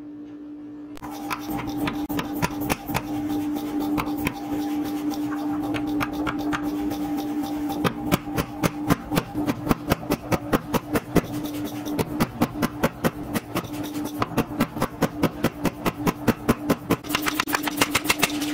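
Rapid, evenly spaced hammer blows on a red-hot Damascus steel billet on an anvil, about three to five a second, starting about a second in.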